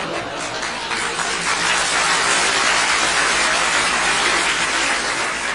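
An audience applauding: many hands clapping together in a dense patter that swells about a second in and dies away near the end.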